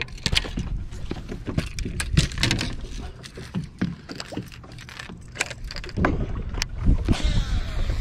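Scattered clicks and knocks of a baitcasting rod and reel being handled aboard a bass boat, over a steady low rumble, with a short whirring hiss near the end.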